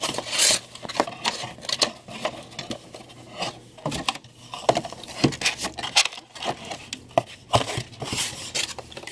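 Cardboard comic short box being handled and fitted together: irregular taps, scrapes and rubbing of the cardboard.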